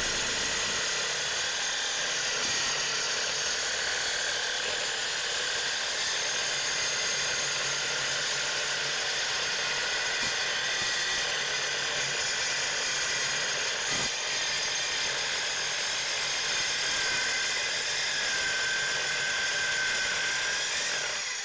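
Evolution EVOSAW180HD metal-cutting circular saw running steadily under load while ripping through 3/8-inch steel plate, a high whine over a dense metallic hiss. The sound drops away at the very end.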